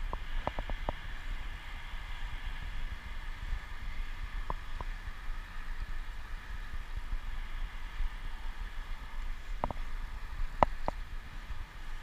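Steady low rumble and hiss of a bicycle rolling along a paved trail, with wind on the microphone. A few short sharp clicks or rattles come in small clusters near the start, about four and a half seconds in, and near the end.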